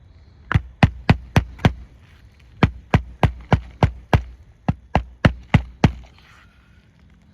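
Hammer driving roofing nails into an asphalt shingle: three quick runs of sharp strikes, five, six and five blows at about three a second.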